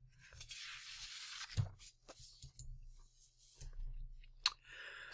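Faint rustling hiss for about a second, then a few soft clicks and knocks over a steady low electrical hum.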